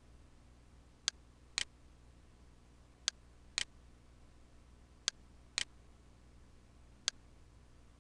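Computer mouse button clicking in pairs about half a second apart, a pair every two seconds, seven sharp clicks in all, over a low steady hum.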